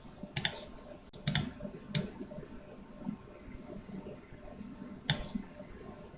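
Four short, sharp clicks: three within the first two seconds and one about five seconds in, over a faint low background.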